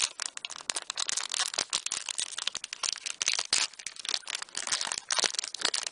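Foil wrapper of a Pokémon trading-card booster pack crinkling as it is torn open and handled, a dense run of sharp little crackles.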